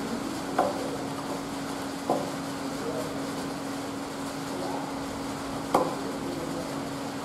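Three sharp knocks as yarn cones are handled and set on the wrap reel's creel spindles and guides, the last the loudest, over a steady low hum.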